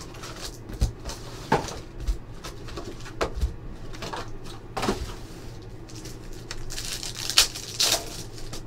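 Trading card packs and a cardboard hobby box being handled: scattered light knocks and taps, with a stretch of crinkly wrapper rustling near the end.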